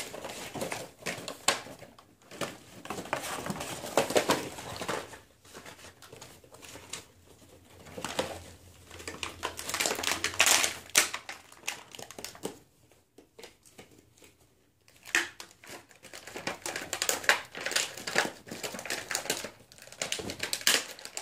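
Plastic blister and cardboard packaging of a boxed action figure being handled and opened: irregular crinkling, rustling and clicks, with a short lull past the middle.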